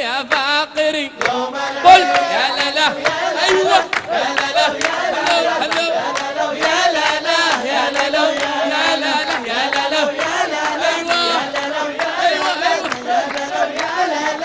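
A group of men chanting a nasheed together, their voices wavering and continuous, over frequent hand claps. A single sharp hit about two seconds in is the loudest moment.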